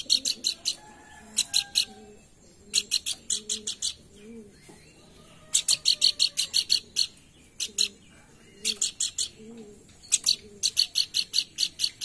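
Pelanduk bukit singing: quick runs of sharp, high chirping notes about a second long, repeated with short pauses between.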